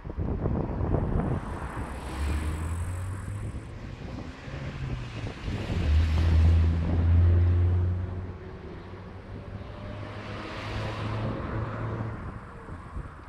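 Cars passing along the road, three times, the loudest about six seconds in, each a swell of engine hum and tyre noise. Wind buffets the microphone throughout.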